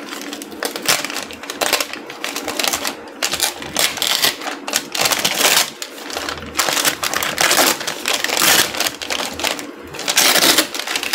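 Brown pattern paper being torn off stitched tulle in a long run of crackly ripping and rustling, many small snaps close together, louder in stretches.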